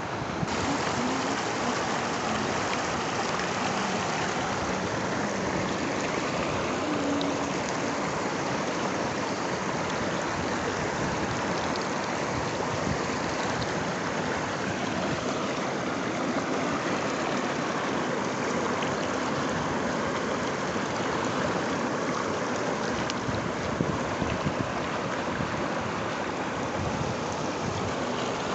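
Mountain river rushing steadily.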